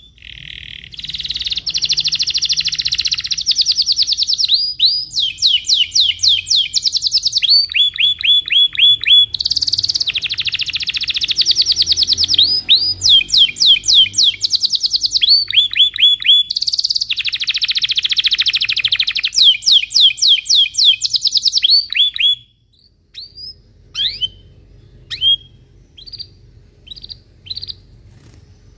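Domestic canary singing a long, unbroken song of fast trills and rolling runs of quick repeated notes, then, about 22 seconds in, breaking off into single scattered chirps.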